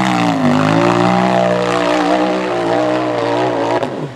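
Off-road race buggy's engine running hard at high revs as it climbs a dirt hill. Its pitch dips briefly about half a second in, then holds steady, and it stops abruptly near the end.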